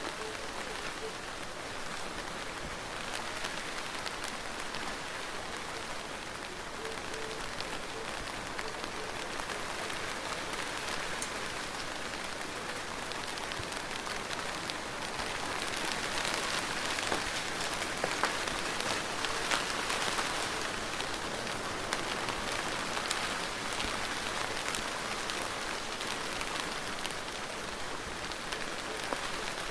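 Steady rain falling on a surface, a dense hiss with scattered drop ticks, swelling heavier for a few seconds around the middle.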